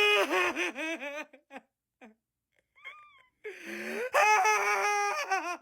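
Shiba Inu dog vocalizing in long, wavering, yodel-like howls: one at the start lasting about a second, a short high whine near the middle, then a longer one from about three and a half seconds in.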